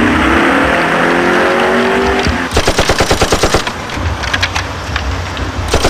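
Car engine accelerating hard, its pitch rising again and again. About two and a half seconds in, a rapid burst of machine-gun fire breaks in, lasting about a second, followed by shorter bursts later.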